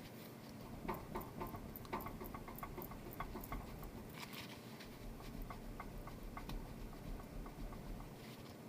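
Light, irregular clicking and ticking, a few small knocks a second, the strongest about one and two seconds in: the knock still present, though smaller, after the SPZ 537909 bearing was fitted.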